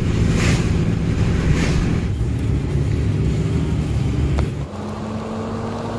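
Ram 3500's 6.7-litre Cummins inline-six turbodiesel pulling the truck along a wet road, heard from inside the cab, with tyre noise on the wet pavement. About two-thirds of the way through, the sound drops to a quieter, steadier hum with a held tone.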